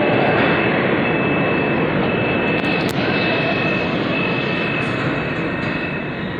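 New York City subway train pulling out and running away down the tunnel: a steady rumble of wheels on the rails with a thin high whine on top, slowly fading as it recedes. One sharp click about three seconds in.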